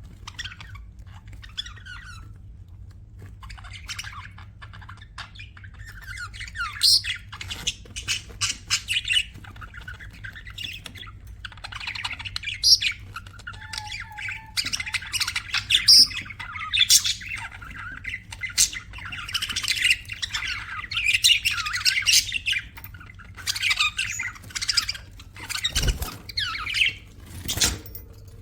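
Budgerigars chirping and squawking in a dense, irregular chatter that grows busier after the first few seconds, over a steady low hum. Two sharp knocks come near the end.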